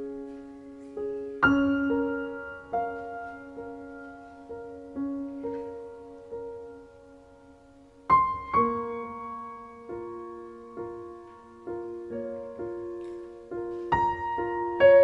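Background music: slow solo piano, notes and chords struck and left to fade, with stronger chords about a second and a half in, around eight seconds in and near the end.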